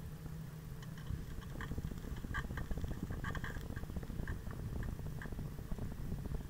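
Ride noise from a handlebar-mounted camera on a bicycle rolling over asphalt: a steady low rumble with fine rattling from the bike and mount. Short high chirps come in now and then, about a second apart.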